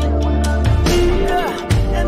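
Background music with heavy bass, sustained notes and a steady beat.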